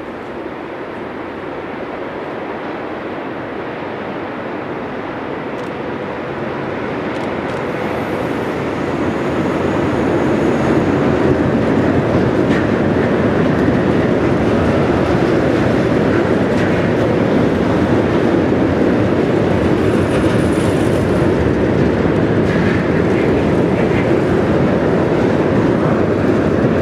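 Freight train of tank wagons hauled by an electric locomotive, approaching and rolling past close by. It grows louder over the first ten seconds or so, then settles into a steady rolling noise of the wagons' wheels on the rails.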